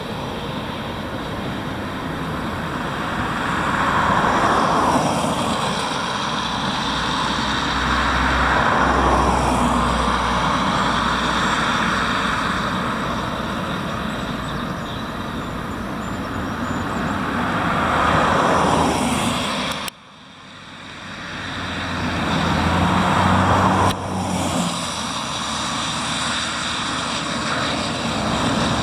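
Road traffic: a steady rush of passing vehicles, several of them swelling up and fading away one after another, with a brief sudden drop about two-thirds through.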